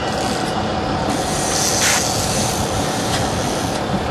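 Steady rumble and rush of a 34-foot Tiara Pursuit sport-fishing boat under way: engine, water along the hull and wind on the open deck, with a brief louder hiss about halfway through.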